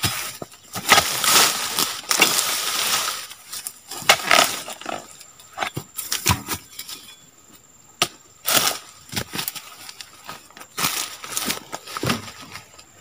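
Irregular rustling and crunching of dry oil palm fronds and leaf litter, with a few sharp knocks, from a harvesting pole chisel being worked at the base of a low palm.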